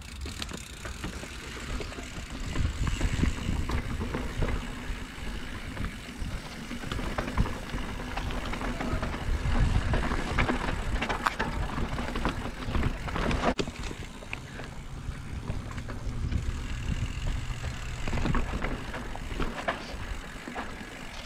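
Mountain bike rolling down a dirt singletrack, heard from a handlebar-mounted GoPro: wind rumbling on the microphone, tyres on loose dirt and the bike rattling over bumps, with one sharp knock about thirteen seconds in.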